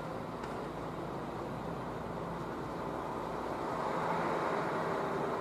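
Steady running noise of a moving vehicle: a rumble and hiss with a faint low hum, growing somewhat louder about four seconds in.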